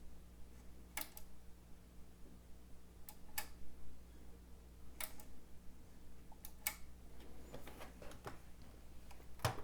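Sansui 4900Z receiver switched on for its power test, giving a low steady hum, with about six sharp clicks scattered through it, the loudest near the end.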